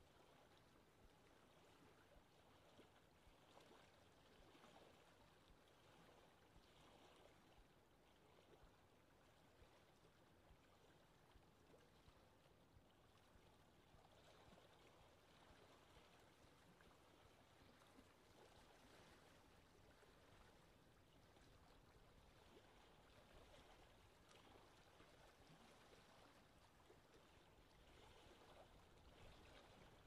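Faint lake ambience: a soft, steady wash of wind with light water sounds.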